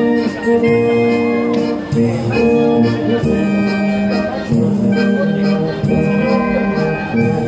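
Live Austrian folk brass band playing a ribbon-dance tune: held brass chords over a steady beat kept by a drum kit.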